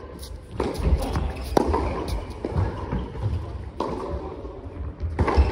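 Tennis balls struck by rackets and bouncing on an indoor court, about four sharp pops over five seconds, each ringing on in the echo of a large hall.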